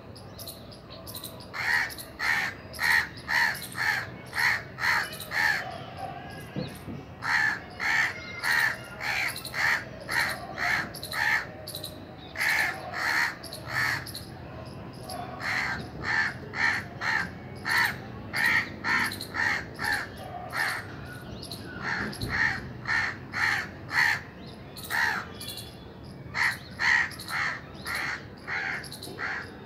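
Crows cawing: short harsh caws repeated in runs of several, about three a second, with brief pauses between the runs.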